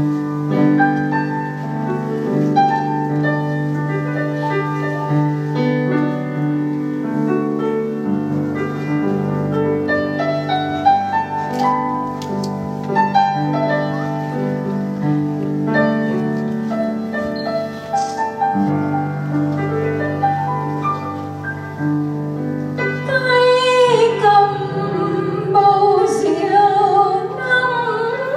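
Grand piano playing a slow solo passage. About 23 seconds in, a woman's singing voice comes in over the piano accompaniment.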